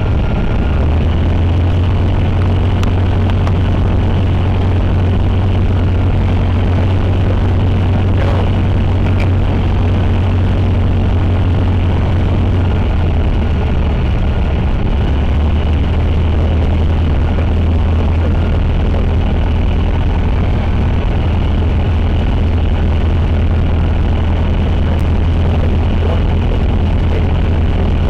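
Cessna 150's Continental O-200 four-cylinder engine and two-blade propeller running at a steady power setting, a constant deep drone.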